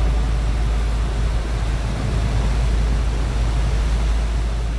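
Fishing boat running at speed on open water: a steady rush of wind and churning wake with a heavy low rumble.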